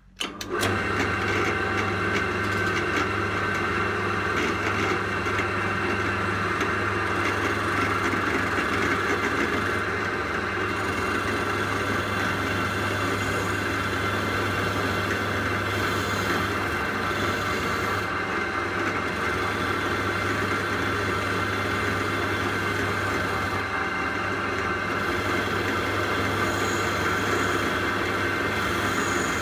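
Wire wheel spinning in a pillar drill, switched on about half a second in and then running steadily: a motor hum under a continuous brushing noise as the wheel scrubs old paint off the cast-iron body of a Record 151 spokeshave.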